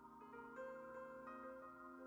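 Faint background music: a few soft notes entering one after another over held tones.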